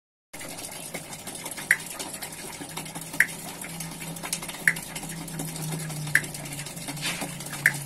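Water splashing and trickling through a small water wheel made of PVC pipe, turning over a plastic basin pond. A light metallic clink comes about every second and a half, five in all, over a low steady hum.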